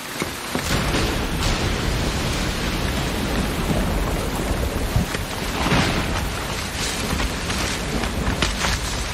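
Heavy rain pouring down, with a low rumble coming in underneath about a second in.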